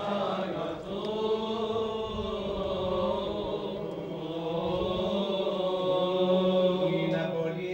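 Greek Orthodox Byzantine chant: a voice singing long, slowly winding melismatic notes over a steady low held drone.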